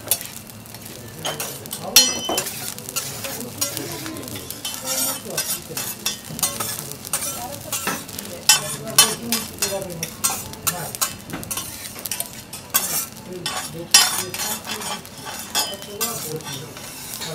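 Metal teppanyaki spatulas scraping and clacking on a steel griddle as fried rice sizzles, with irregular scrapes and a few sharp clanks standing out.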